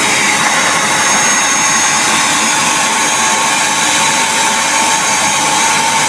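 Wet-and-dry canister vacuum cleaner running steadily with a whine, its wide floor nozzle sucking up water from a concrete floor.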